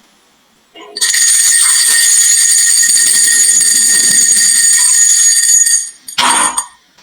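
Marbles rolling with a steady, high metallic ringing for about five seconds. A short, sharp clatter of marbles striking follows near the end.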